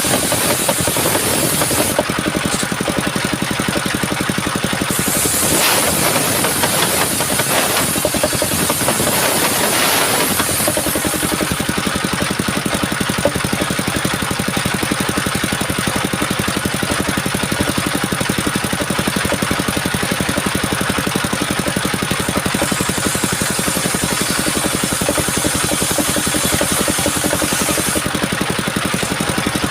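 Engine-driven homemade circular sawmill running steadily, its high blade whine changing several times as it saws coconut wood.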